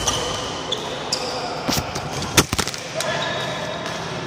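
Badminton rally on an indoor court: shoes squeaking on the court floor and racket hits on the shuttlecock, the loudest about two and a half seconds in.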